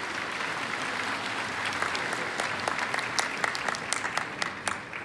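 A large seated audience applauding, a dense patter of many hands with a few nearby claps standing out sharply; it builds at the start and tails off at the end.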